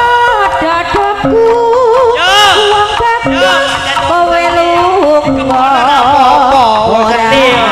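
Live Javanese jaranan ensemble music over a loud sound system: drum strokes under a high, bending and wavering melody line.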